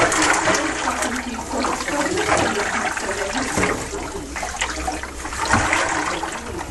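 Water running and splashing steadily, with gurgling.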